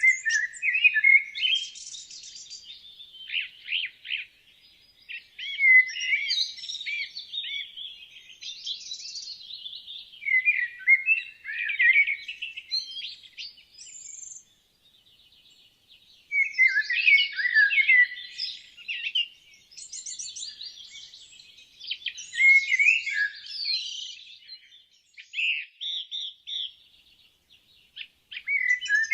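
Woodland songbirds singing: quick, varied phrases of chirps and trills, one after another with short pauses between songs and a brief lull about halfway through.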